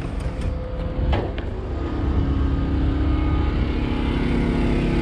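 Small generator running steadily, its hum growing louder from about two seconds in as the microphone comes outside near it; a few light clicks and a knock about a second in, from the cab door and step.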